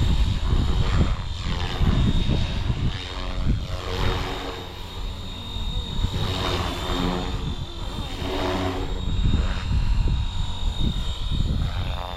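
Flywing FW450 V3 electric RC helicopter flying 3D manoeuvres: the rotor and motor sound rises and falls in pitch as the blade pitch and load change, over a steady high motor whine. Heavy wind buffets the microphone.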